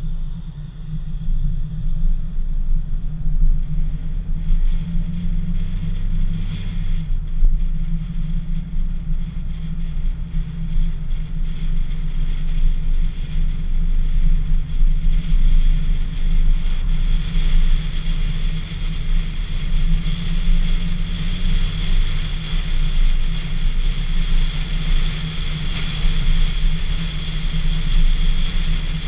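Dacia Sandero driving on the road, heard from a GoPro mounted outside on the roof: a steady low rumble of wind on the microphone, with tyre and engine noise underneath.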